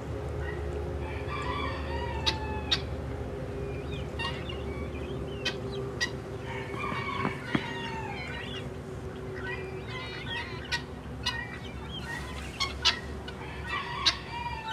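Farmyard chickens calling, a rooster crowing and hens clucking in several drawn-out, gliding calls, over a faint steady hum. Sharp clicks come now and then.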